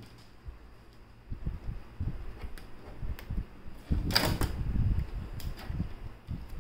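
Hands handling a plastic laser printer while removing its packing tape: scattered light clicks and taps, with a short rasping peel or rip about four seconds in.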